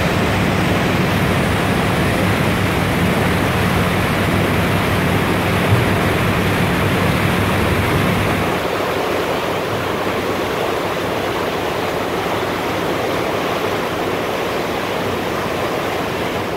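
Steady, loud rushing noise, with a low hum underneath that fades out about halfway through.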